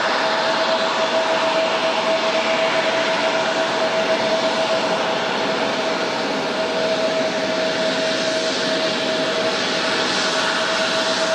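Jet airliner engines running steadily: a constant whine of unchanging pitch over an even rushing noise.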